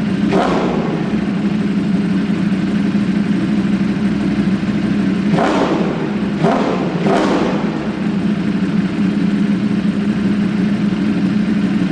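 Ducati Streetfighter V4 S's V4 engine idling through its exhaust, with four quick throttle blips: one right at the start and three between about five and seven seconds in.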